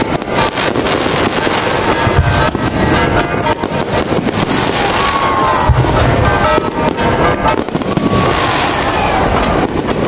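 Aerial fireworks shells bursting in quick succession: a dense run of bangs and crackling, with music playing underneath.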